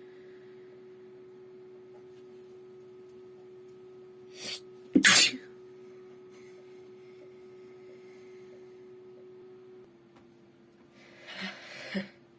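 A woman's single loud sneeze about five seconds in, preceded by a quick sharp inhale. Near the end come a few breathy, sniffly breaths. Underneath runs the steady hum of a computer.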